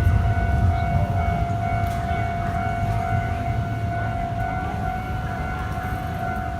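Japanese railway level-crossing warning alarm ringing steadily, a warning that a train is approaching, over a low rumble that eases a little.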